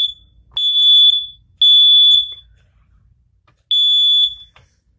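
Kidde dual-sensor smoke alarm sounding its test alarm: loud, high-pitched beeps about half a second long, in the three-beep temporal pattern. After the third beep of a round there is a pause of about a second and a half, and the next round starts near the end.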